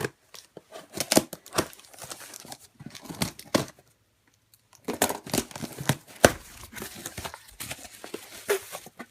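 A cardboard shipping box and its packaging being torn open by hand: irregular ripping and crinkling, pausing briefly about four seconds in.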